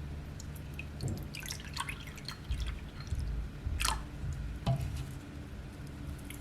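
A person sipping and swallowing a drink: scattered small wet clicks and mouth sounds, with one louder sharp click about four seconds in.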